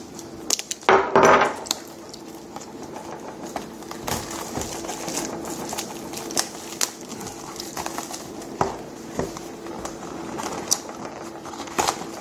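Hands opening a trading-card box and handling the packs inside: scattered clicks, taps and cardboard and wrapper rustling, with a louder rustle about a second in.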